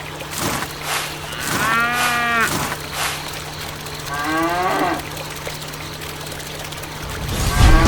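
Cow mooing three times, the last call the loudest, over a steady low hum with a few clicks.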